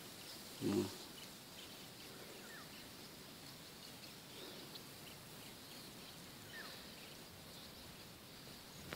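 Faint open-air ambience with a few thin, distant bird chirps, and a short low murmur from a person about a second in.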